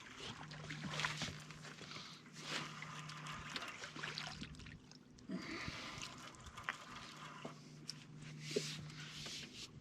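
Small splashes and drips of water against a boat, with scattered light clicks, over a faint low hum that stops and starts a few times.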